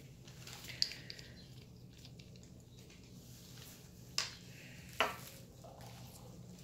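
Glass test tubes and a dropper bottle being handled: a small click, then two sharp light taps about a second apart, over a faint steady hum.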